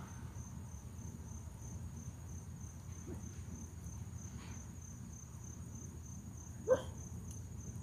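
Steady high-pitched chirring of insects over a low background rumble. A single brief rising chirp sounds near the end.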